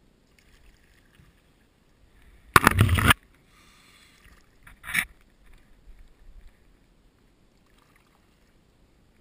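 Kayak paddle working the water beside the kayak: one loud splashing stroke lasting about half a second, then a shorter, sharper splash or knock about two seconds later.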